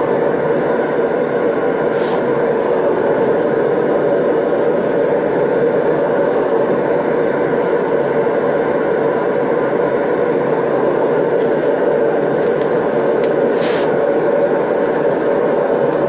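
TS8000 air/propane torch burning steadily into a Kaowool-lined stacked brick furnace, a constant rushing flame noise.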